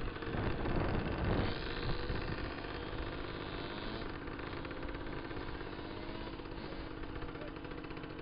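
Small dirt bike engine running steadily, heard from the moving bike, with a rapid, even pulsing; louder and rougher in the first second and a half, then settling.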